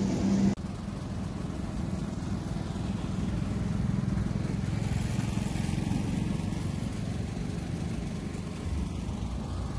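Steady low rumble of a vehicle driving along a road: engine and road noise, starting abruptly about half a second in.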